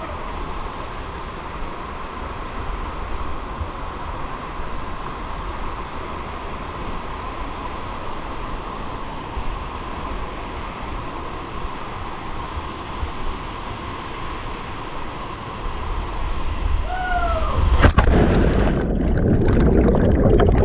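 Steady rush of canyon water. About three seconds before the end there is a sharp knock, and the water then grows louder and heavier, churning.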